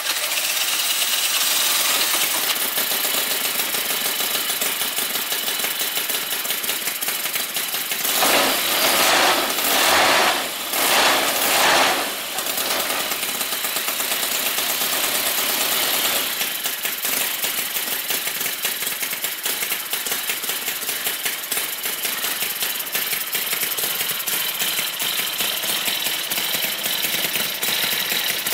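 Miniature Cison FG-9VT 9cc 45-degree V-twin four-stroke model engine running with a fast, rapid firing. About a third of the way in the sound swells louder three times before settling back to a steady run.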